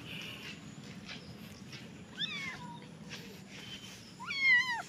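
A small black-and-white kitten meowing twice, high cries that fall in pitch, the second louder near the end: the distress cries of a frightened kitten being picked up in a rescue.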